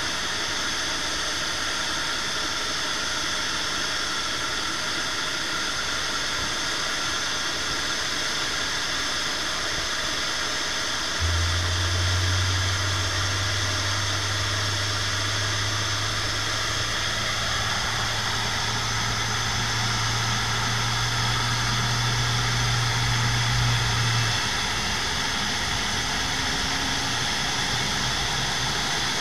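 Pushback of an Airbus A350-900: a steady jet-engine hiss and whine, mixed with the pushback tractor's engine running. About 11 seconds in, a deep steady hum sets in, lasts about 13 seconds and stops abruptly.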